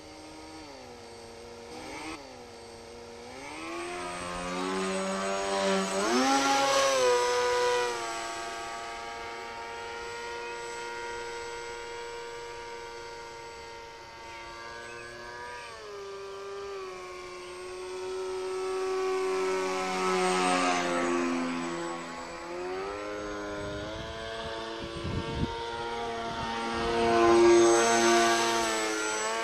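Radio-controlled depron model airplane flying overhead, its motor and propeller giving a steady whine. The pitch rises and falls with throttle and distance, and it is loudest in two close passes, a third of the way in and near the end, where the pitch drops as the plane goes by.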